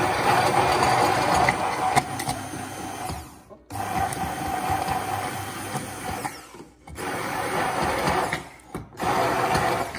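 Braun immersion (stick) blender running in a plastic beaker of alioli, a garlic and olive-oil emulsion that has turned thick. It runs in four bursts, stopping briefly three times as the blending of the stiff sauce is finished.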